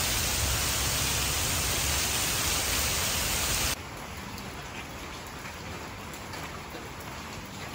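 Heavy rain falling, with water pouring off a roof eave in a loud steady hiss. About four seconds in it drops suddenly to a much quieter steady hiss with faint scattered ticks.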